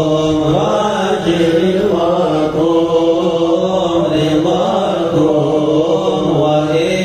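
Sufi devotional chanting (inshad), the voices holding long, slowly gliding melismatic lines without a break.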